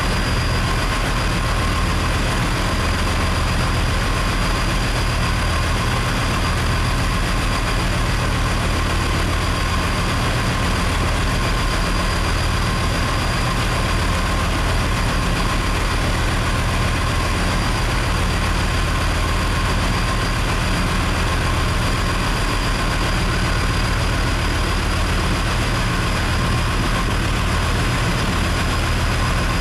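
A boat's engine running steadily under way: a low, even rumble with a faint steady whine above it and no change in speed.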